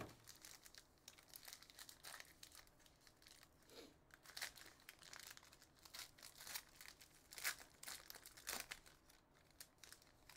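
Foil wrapper of a trading-card pack being torn open and pulled apart by hand: faint, scattered crinkles and crackles.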